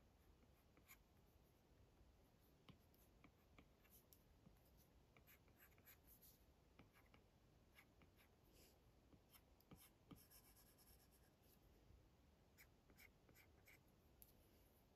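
Faint tapping and scratching of a stylus tip stroking across an iPad's glass screen while sketching. Short strokes come at an irregular pace, with a longer scratching stroke about ten seconds in.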